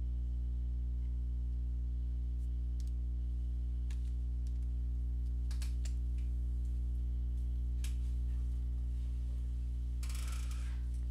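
Steady electrical hum on the microphone, with a few scattered computer mouse clicks and a short burst of keyboard clatter near the end.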